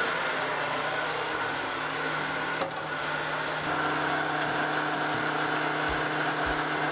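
Breville countertop blender motor running steadily at full speed, blending a creamy liquid mixture, with a faint click about two and a half seconds in.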